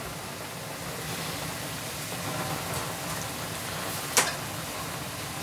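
A steady hiss with a fine crackling texture, and one sharp click about four seconds in.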